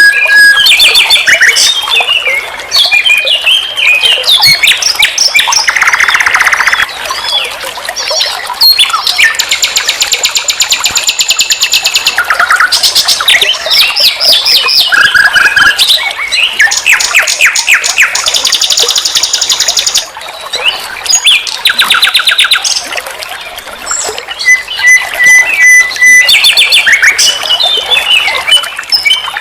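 A nightingale (sikatan londo) singing a rich, varied song: clear whistled notes, pitch sweeps and fast rattling trills, in phrases broken by short pauses.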